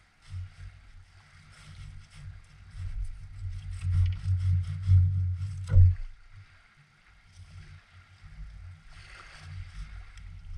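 Fillet knife sawing along a striped bass's backbone: a rhythmic scraping of about three strokes a second. Under it a low rumbling swells, loudest about four to six seconds in, and cuts off just before six seconds.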